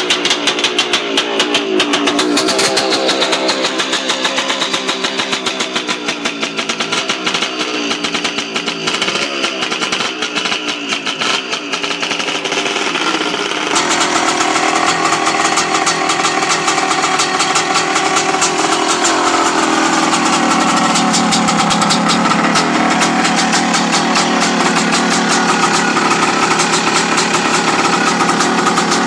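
Dirt bike engine running and revving, its pitch rising and falling with the throttle; about halfway through the sound changes abruptly and the engine then holds a steadier note.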